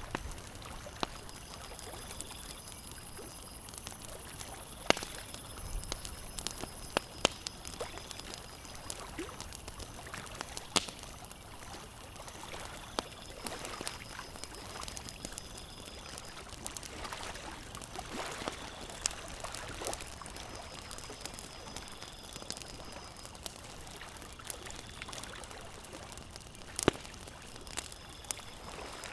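Campfire crackling with sharp, irregular pops, a few of them loud, over a steady wash of lake water lapping.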